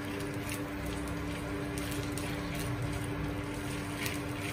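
Steady hum of an induction cooktop under a pan, with a few soft scrapes of a silicone spatula stirring soaked basmati rice as it roasts in ghee in a nonstick pan.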